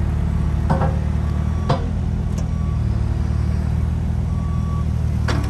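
Engine running steadily with a low, even rumble, a few light clicks or knocks heard over it.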